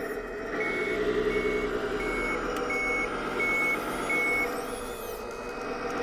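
The CS-RC16 electronic sound module of a 1:14 RC wheel loader plays a simulated diesel engine running steadily. Over it a reversing alarm beeps six times, evenly at about one and a half beeps a second, starting about half a second in, which signals the loader backing up.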